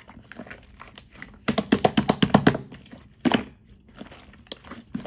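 Clear slime being squished and pressed by hand, giving quick wet clicks and pops. A dense run of loud pops starts about a second and a half in and lasts about a second, with another burst shortly after and softer scattered clicks.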